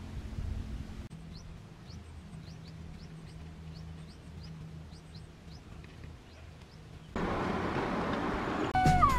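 Open-field ambience: a low rumble with faint, short, high bird chirps repeating about once or twice a second. About seven seconds in it cuts to a louder steady rushing noise, and music with falling tones starts near the end.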